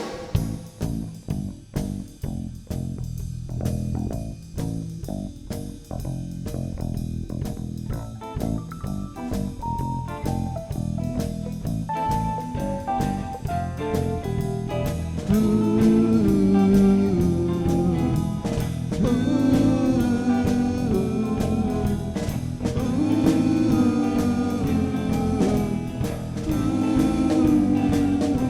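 Band playing an instrumental intro in a bluesy, jazzy style: a sparse drum-and-bass beat with guitar, and a descending line of single notes from about eight seconds in. The full band comes in louder at about fifteen seconds.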